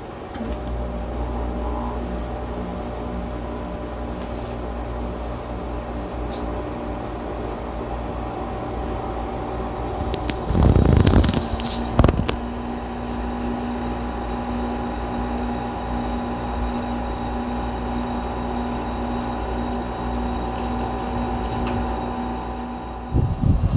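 Paseco Window Air Conditioner 2 running: a steady mechanical hum with several steady tones. Between about ten and twelve seconds in there is a brief louder clatter ending in a sharp knock.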